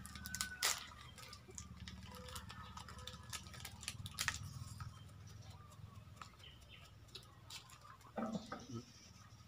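Scattered sharp clicks and crinkles of plastic snack packets and a sachet being handled, over a steady low hum, with a brief voice-like sound near the end.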